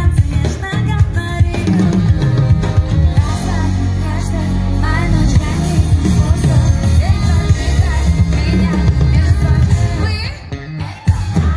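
Live pop music over a concert PA: a female singer's vocals over drums, bass and guitar. The band drops back briefly about ten seconds in, then comes back in.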